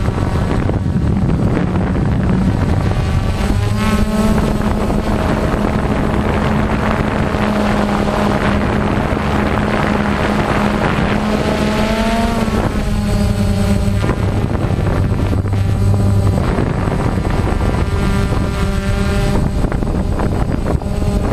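Motors and propellers of a multirotor camera drone running loudly and steadily, with the pitch of their whine shifting up and down a few times as it manoeuvres.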